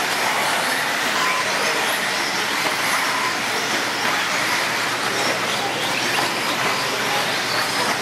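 A pack of modified-class electric 4WD RC buggies racing, their motors and drivetrains giving a steady whine.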